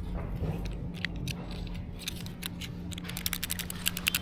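Utility knife's blade slider clicking in a quick run of sharp clicks, thickest near the end, over a faint steady hum.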